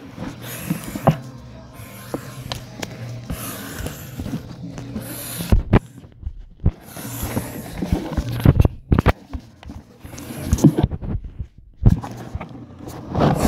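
Handling noise: rubbing, rustling and irregular knocks as a phone or camera is held with fingers over its microphone, cutting out briefly twice, over a faint steady low hum.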